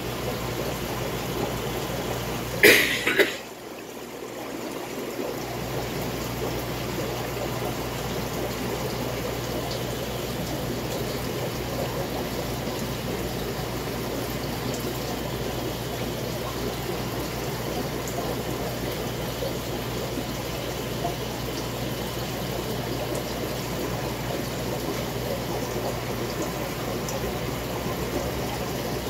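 Aquarium water trickling and splashing steadily over a constant low hum, typical of a running tank filter or air pump. Two sharp knocks come close together about three seconds in.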